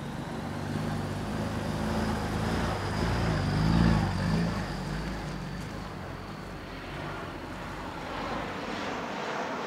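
A heavy truck's engine rumbling as it goes by close, swelling to its loudest about four seconds in and then fading, over steady traffic noise and a faint high whine.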